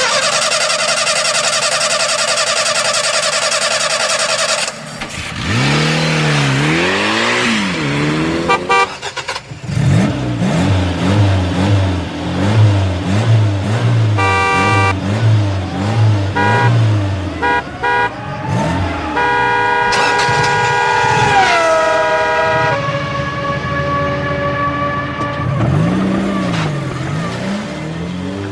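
A string of car sound effects: a long steady car horn blast, then engines revving up and down, several short horn honks, a held horn whose pitch drops partway through, another long horn, and more engine revving.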